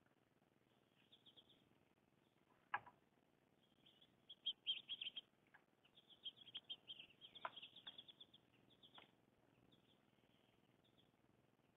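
Small songbirds chirping faintly, in quick runs of high chirps that are busiest between about four and nine seconds in. A single sharp click comes nearly three seconds in.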